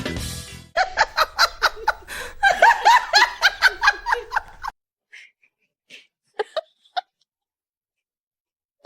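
A person laughing hard in rapid bursts for about four seconds, then a few short faint sounds.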